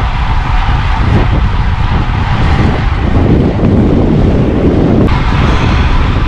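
Wind rushing over the microphone of a moving bicycle, a loud steady rumble with the low end strongest. It grows somewhat heavier for a couple of seconds in the middle.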